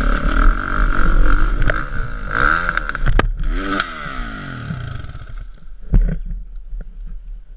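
Dirt bike engine revving hard, its pitch rising and falling several times, with sharp knocks about three seconds in as the bike crashes and goes down. The engine then runs lower and quieter, with one loud thump about six seconds in.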